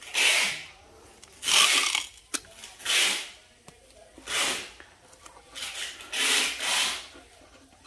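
Paper masking tape pulled off the roll and torn in a series of short rasping rips, then a pen scratching on the stuck-on tape near the end. A single sharp click falls a little over two seconds in.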